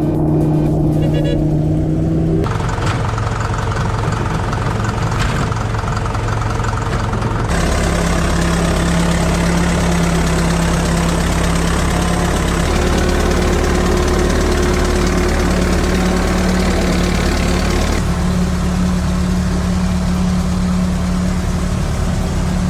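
Heavy machinery engines running steadily, with several abrupt changes in the engine sound a few seconds apart as one machine's engine gives way to another.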